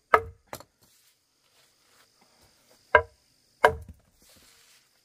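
Hammer blows on a stone slab as it is dressed into a round hearth-floor stone: four sharp, briefly ringing strikes, two close together at the start and two more about three seconds in. A faint steady high buzz of insects runs underneath.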